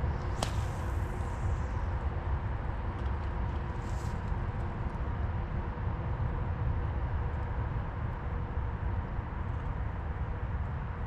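A cast with a spinning rod and reel: a sharp swish about half a second in, with the hiss of line paying out fading over the next second or so. A steady low rumble runs underneath.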